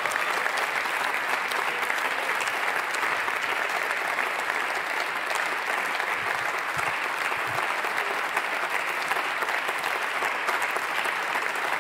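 Sustained applause from many members of parliament clapping in a large plenary chamber, at a steady level throughout, following the end of a speaker's sentence.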